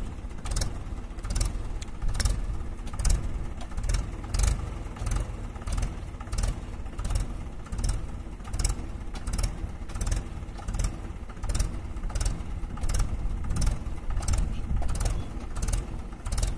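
Mahindra 575 tractor's four-cylinder diesel engine running at idle, a steady uneven rumble, with short sharp ticks or scrapes about twice a second over it.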